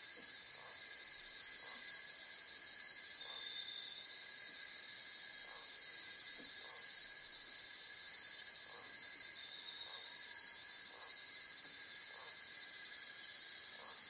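Steady insect chorus of crickets trilling without a break, with faint soft puffs recurring about once a second beneath it.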